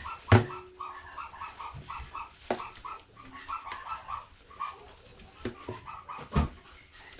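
Rapid high-pitched yips from an animal, several a second, broken by three sharp knocks, the loudest just after the start.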